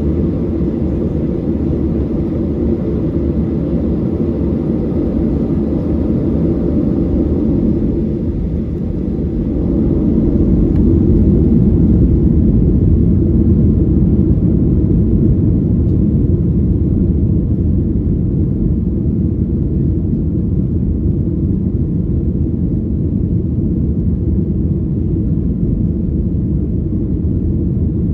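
Airliner cabin noise heard from a window seat: a steady low rumble of the jet engines and airflow, swelling a little about ten seconds in.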